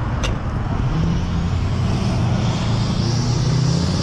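Road traffic passing on a multi-lane road: steady engine and tyre noise, with one vehicle's engine note getting louder from about a second in as it approaches.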